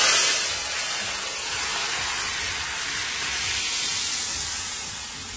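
Hot oil with fried garlic and cumin poured into a pot of split pea dal, hissing and sizzling loudly as it hits the liquid: the tempering (tarka) of the dal. The hiss starts suddenly at full strength and dies down slowly.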